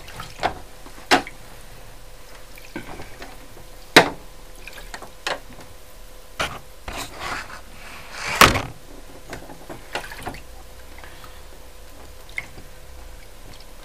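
Lith developer sloshing in a developing tray as the tray is agitated, with scattered small splashes and clicks, the loudest about two-thirds of the way through.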